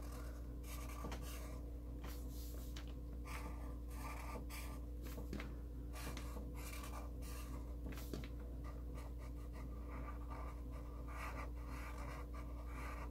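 Black Sharpie permanent marker drawn over paper in many short strokes at an uneven pace, going over the same lines again and again to make them thick. A steady low hum runs underneath.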